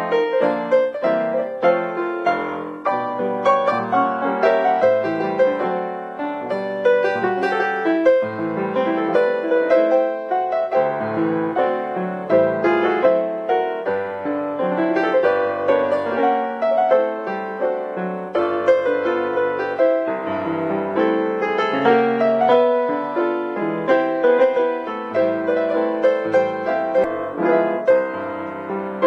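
Piano music: a brisk silent-film accompaniment of many quickly struck notes.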